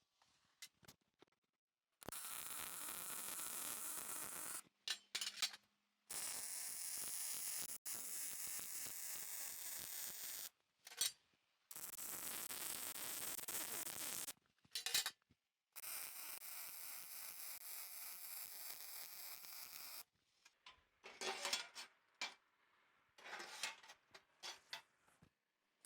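MIG welder laying four beads of about three to four seconds each, a steady hiss with short gaps between them. Brief sharp sounds fall between the beads and come in a cluster near the end.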